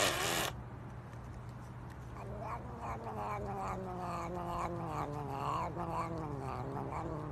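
A cat gives a short, loud cry, then a long, drawn-out yowling meow that slowly sinks in pitch and wavers about twice a second, while it rubs against a finger being petted.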